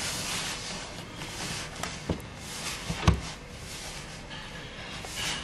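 Hands mixing flour and water into dough in a plastic bowl: a soft rustling, scraping and squishing, with a couple of dull knocks, the loudest about three seconds in.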